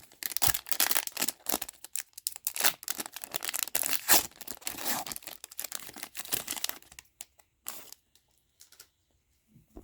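A trading-card pack wrapper being torn open and crinkled, a dense crackling rustle for about seven seconds, followed by a few light clicks and rustles of cards being handled.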